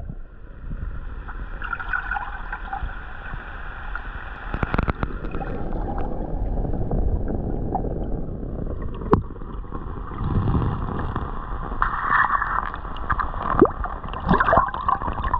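Water gurgling and splashing, with a low rumble underneath and a few sharp clicks.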